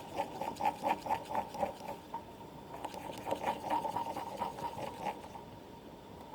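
A brush stirring thick white PVA glue in a small plastic container: rapid sticky clicks and scrapes, about four or five a second, in two spells with a short pause about two seconds in, then dying down near the end.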